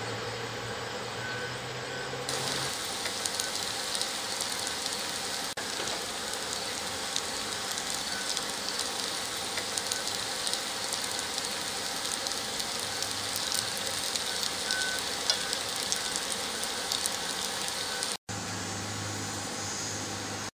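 Slices of radish cake sizzling and crackling as they pan-fry in oil, the sizzle setting in about two seconds in. A low steady hum is heard before the sizzle starts and again near the end.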